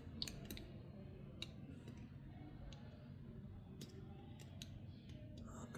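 Faint, scattered clicks and ticks of a small tool picking at a sticker inside an opened cell phone, over a quiet room background.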